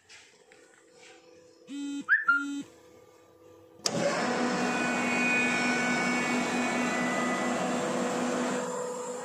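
Two short electronic beeps, then about four seconds in the electric motor and twin-screw air end of a 10 HP oil-lubricated rotary screw air compressor start abruptly and run with a steady whirring hum. The level eases slightly near the end.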